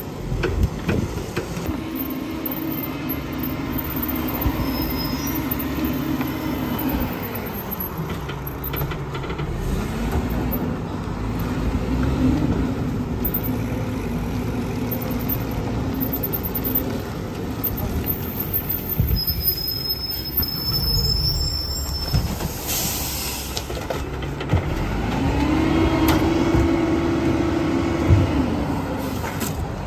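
Mack garbage truck's diesel engine running and revving, three times climbing to a held pitch and dropping back. About two-thirds through there is a short high squeal, then a burst of air-brake hiss.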